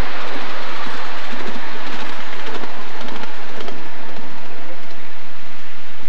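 Miniature passenger-carrying steam locomotive hauling its riding cars along the track, heard from the train as a steady, loud rush of steam and running noise.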